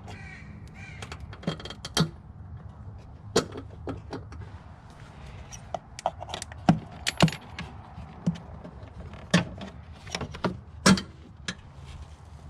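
Metal hand tools clinking and tapping against fasteners and parts in a car's engine bay, in about a dozen sharp, irregular clicks while an intake nut and bolts are undone.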